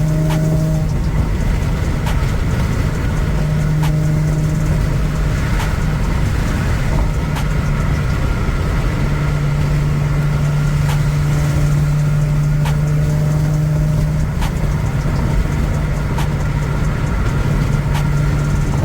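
Car driving at road speed: a steady engine hum over constant road and tyre rumble, with a few faint clicks now and then.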